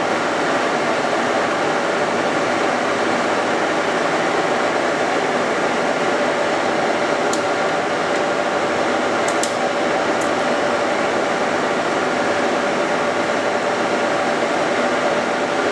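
Leblond Regal heavy-duty lathe running, a steady mechanical hum with a steady whine from its drive. A few sharp clicks come in the middle as levers on the carriage apron are worked.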